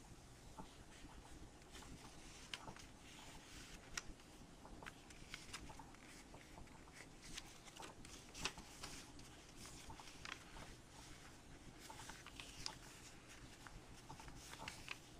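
Faint rustling and crinkling of a sheet of printer paper being folded by hand, with scattered soft crackles as creases are pressed and the paper is collapsed along them.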